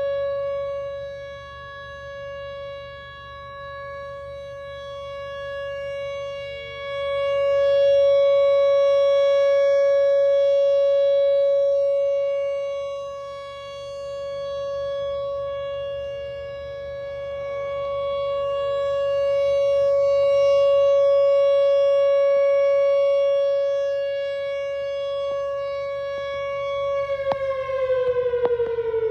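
Outdoor tornado warning siren sounding a steady tone on one pitch, rich in overtones, swelling and fading in loudness every dozen seconds or so. This is the steady alert signal of a tornado drill. Near the end the pitch starts to fall as the siren winds down.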